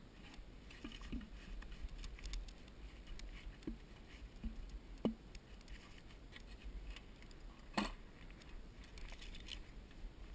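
Scattered clicks and knocks of a climber's gear and gloved hands against a pine trunk, the two sharpest about five seconds in and near eight seconds, over a low wind rumble on the microphone.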